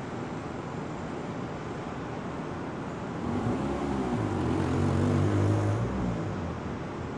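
Engine hum of a passing vehicle, swelling about three seconds in, bending up and back down in pitch, and fading about a second before the end, over steady outdoor background noise.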